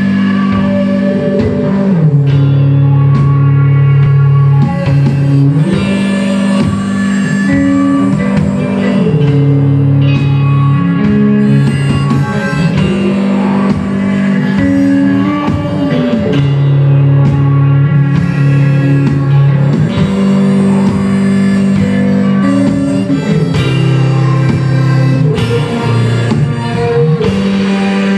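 A rock band playing live, with drum kit, electric bass, electric guitar and violin. Loud, held low notes switch back and forth between two pitches every few seconds under steady drumming.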